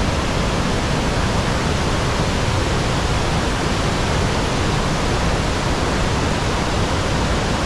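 Gullfoss waterfall on the Hvítá River: a steady, dense rush of falling water.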